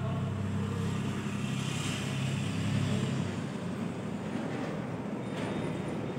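Steady low mechanical hum with a rumble, from the small electric motor turning the lamp head of a rotating animal-repeller light.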